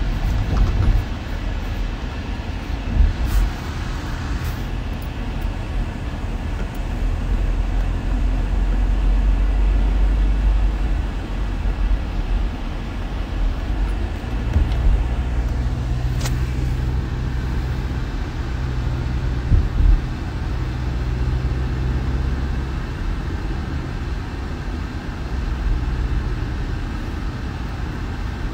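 Steady low road and engine rumble inside the cabin of a moving car, with a couple of brief knocks.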